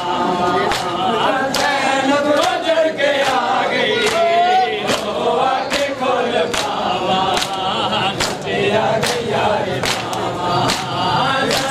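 A crowd of men chanting a noha together while beating their chests (matam) in unison, a sharp slap landing about every 0.7 seconds under the singing.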